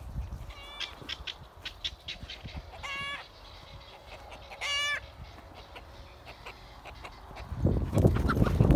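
Chickens clucking, with a few short clucks in the first second and then two longer pitched calls about two seconds apart. A loud low rumble of noise comes in near the end.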